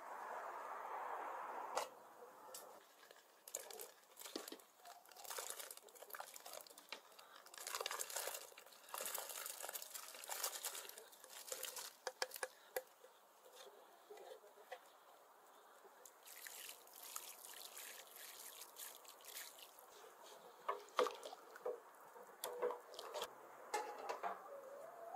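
Cut pieces of boiled beef tripe tipped from a wooden plate into a pot of boiling water, splashing and dripping in irregular bursts. Near the end a metal pot lid clinks as it is set on.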